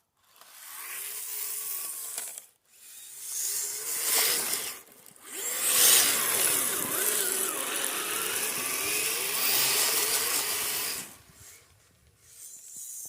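Electric motor and drivetrain of a Kyosho Blizzard RC tracked snowcat whining as it is driven through soft snow, in three throttle bursts whose pitch rises and falls; the last and longest stops about two seconds before the end.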